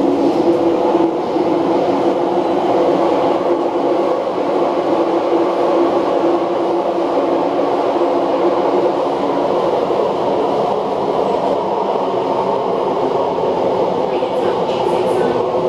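Interior running noise of an MTR Kinki Sharyo/Kawasaki SP1900-family electric train at speed in a tunnel: a steady rumble of wheels on rail with a droning motor hum, heard inside the carriage. Near the end, the on-board next-station announcement begins.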